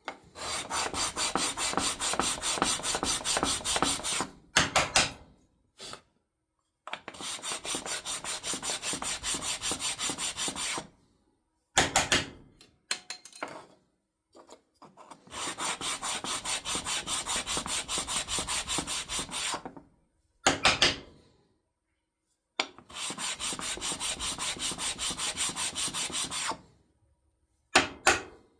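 A 3D-printed plastic part rubbed back and forth on sandpaper to flatten it: four runs of quick, even scraping strokes, about five a second, each lasting about four seconds, with short pauses and a few brief, sharper scrapes between runs.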